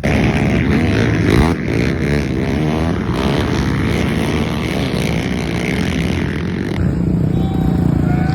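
An off-road racing ATV's engine running loud and hard, its pitch rising and falling as the throttle is worked. The sound changes abruptly about seven seconds in.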